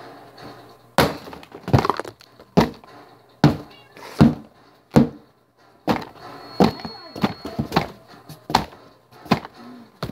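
A quick series of hard hits and smashing crashes, about a dozen in ten seconds, with short quiet gaps between them.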